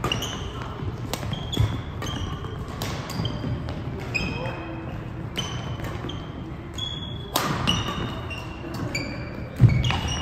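Badminton rally: sharp pops of rackets striking the shuttlecock every second or so, with many short high squeaks of court shoes on the floor and footfalls, including a heavy thud near the end.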